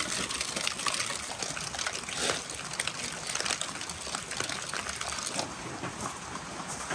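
Steady rain falling, a dense patter of drops.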